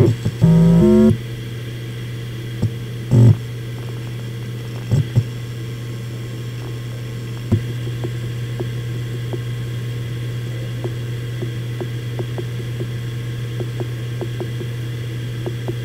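Seagate Enterprise Capacity 2.5 HDD v3 (ST1000NX0313), a 7200 rpm 2.5-inch hard drive, spinning with a steady hum. Near the start, as it initialises, it gives a brief loud rising stepped whine and a few heavy clunks. From about halfway, under a random read/write benchmark, its heads seek with a rapid, irregular stream of light ticks.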